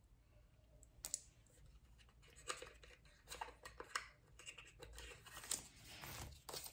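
Faint clicks and rustling of hands handling plastic lip gloss tubes and their packaging. A tube is set down and the next one picked up from among the gifts.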